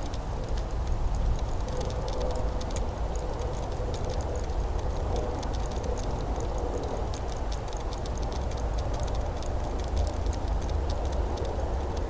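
A dog's footsteps on paving stones, heard from a camera on its harness: quick, irregular light clicking of claws, over a steady low wind rumble on the microphone.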